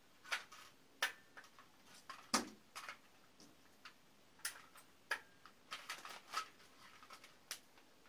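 Plastic toy guns clicking and knocking as they are handled: a dozen or so light, irregular clicks, with a slightly louder knock a little over two seconds in.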